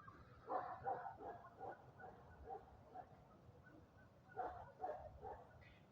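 Short, repeated cries from a pet animal in two runs: about six quick cries fading off near the start, then about four more a little past the middle.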